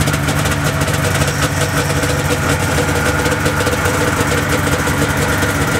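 Two-stroke engines of two late-1970s Ski-Doo Blizzard snowmobiles idling together, steady and even.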